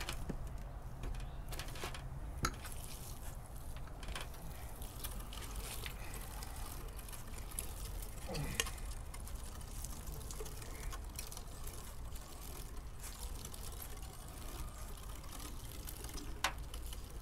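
Meat grinder running as chunks of raccoon meat and beef fat are fed through it, a steady mechanical hum with a few sharp clicks and knocks.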